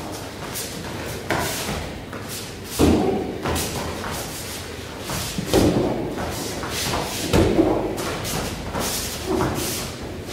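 Front kicks landing on a handheld kick pad: a run of dull thuds every second or two, mixed with footsteps on foam floor mats.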